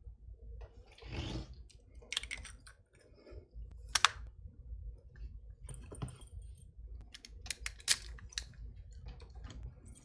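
Small metal clicks and clinks of padlock parts being handled as a replacement cylinder is fitted into a Master Lock 220 padlock body, with two sharper clicks at about four and eight seconds in.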